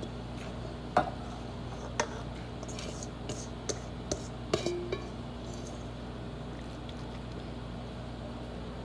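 A few light knocks and clicks of kitchen dishes and a pan being handled in the first few seconds, over a steady low electrical hum.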